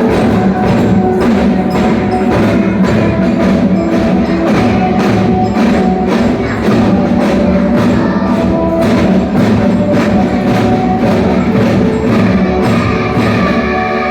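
Children's drum band playing: drums struck in a steady, fast beat, with a tuned melody carried over the top.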